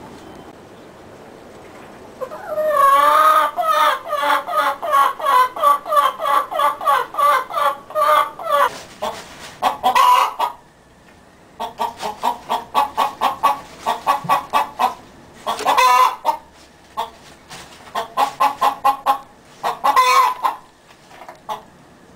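Hen cackling, starting about two and a half seconds in. Runs of quick clucks, about four a second, each end in a longer, louder call, three times over.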